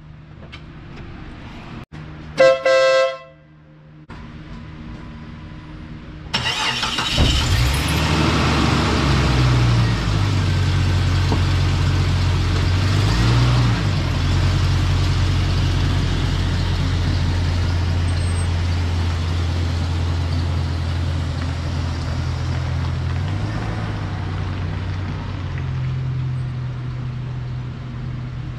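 Wolo Bad Boy electric air horn on a 1997 Jeep Cherokee XJ giving two short, loud blasts about two seconds in. About six seconds in the Jeep's engine starts and then runs steadily, its pitch rising and falling briefly twice.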